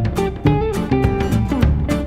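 Background music led by plucked guitar, with a steady percussive beat.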